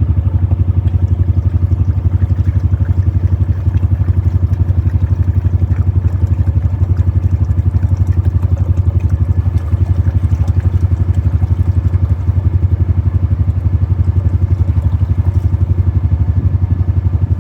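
Portable sawmill's gasoline engine idling steadily, with a fast, even low pulse that does not change.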